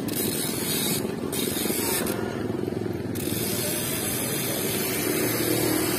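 Bicycle freewheel ticking rapidly as the bike coasts, dropping out briefly a few times when the rider pedals, over wind and tyre noise.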